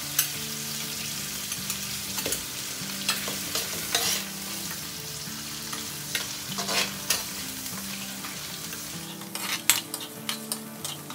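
Metal ladle stirring liquid in a wok where chicken stock, rice wine and garlic slices are simmering and sizzling, with a steady hiss. Scattered scrapes and clicks of the ladle against the wok come more often near the end.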